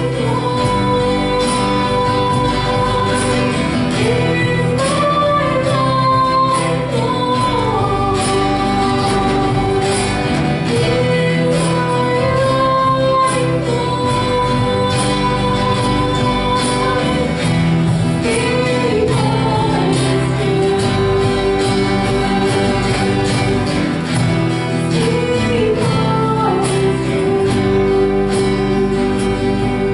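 Live church band of drums, keyboard and guitars playing a slow song, with a melody of long held notes that slide from one pitch to the next.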